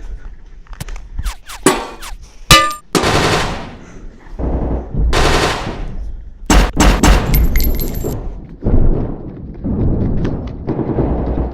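Dubbed action-movie sound effects: rapid sharp cracks like gunshots, whooshing sweeps and a heavy low rumble.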